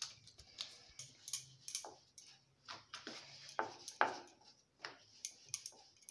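Scattered light clicks and soft knocks of kitchen handling, loudest about two-thirds of the way through: a plastic puli mould being handled and set down, and a wooden rolling pin knocking on a wooden rolling board as a round of dough is rolled out.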